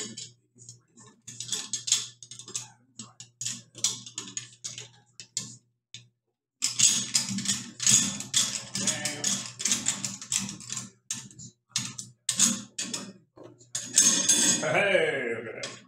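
Small metal parts clicking and rattling as a Springfield 1903 receiver is fitted onto the barrel and its bolt worked to check that it closes. The clicks come in irregular clusters over a steady low hum, with a brief break about six seconds in.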